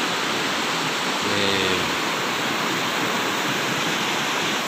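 River rapids rushing over boulders: a steady, loud rush of water.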